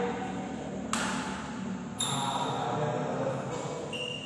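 Badminton rackets striking the shuttlecock during a doubles rally: two sharp hits about a second apart, echoing in the hall, then a short high squeak near the end.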